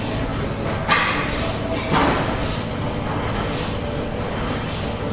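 Antique stationary gas engines running in a barn, a steady low mechanical rumble with two sharp bangs about a second apart.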